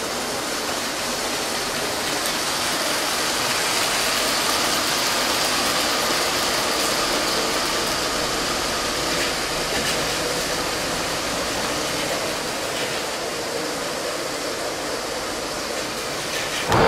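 Several LEGO trains running on plastic track: a steady whir of their small electric motors and rolling wheels, with a faint steady whine on top.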